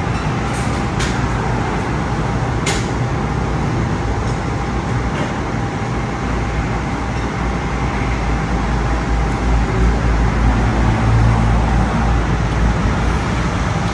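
Steady road-traffic noise, with a heavy vehicle's low rumble swelling louder from about eight seconds in. A few light clicks come in the first three seconds.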